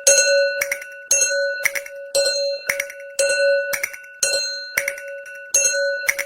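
Japanese railroad level-crossing warning bell ringing at a steady pace, about two strikes a second, each strike a ringing tone that fades before the next.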